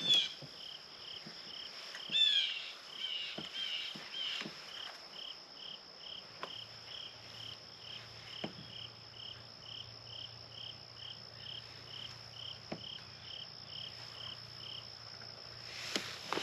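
Insects calling: a steady high-pitched buzz with a separate chirp repeating about twice a second, the chirping stopping about fifteen seconds in. A bird calls briefly about two seconds in.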